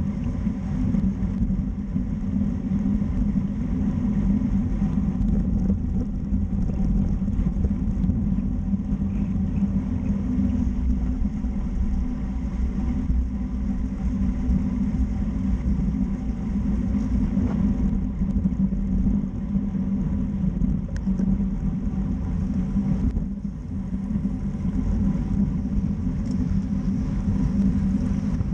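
Steady wind rush and tyre rumble on a road bike's mounted camera at race speed, about 27 mph, dipping briefly near the end.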